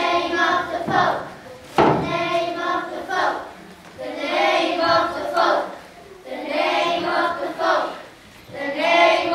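A group of children singing together in unison, a chant-like song in short repeated phrases with brief gaps between them. A single sharp knock cuts through about two seconds in.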